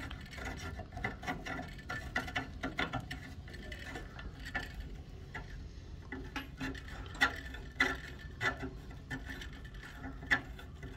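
Flexible coiled-metal gooseneck arm being twisted into its metal mounting block and bent into place: an irregular run of small metallic clicks and creaks, with a few sharper clicks in the second half.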